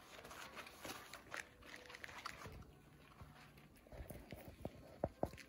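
Miniature Schnauzer puppies' paws and claws scratching and pattering on mats and puppy pads as they play, with two sharp clicks near the end.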